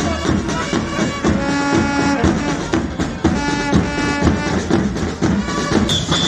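Marching brass band playing a march outdoors: horns hold sustained chords over a steady beat of drum strikes.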